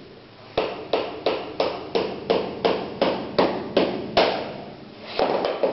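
Hammer blows on pieces of wood lying on a floor: a steady run of about a dozen strikes, roughly three a second, that stops about four seconds in, then a few more strikes near the end.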